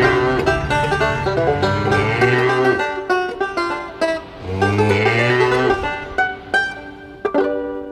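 Upbeat plucked-string instrumental music with a bass line, ending on a last struck chord near the end that rings out as it fades.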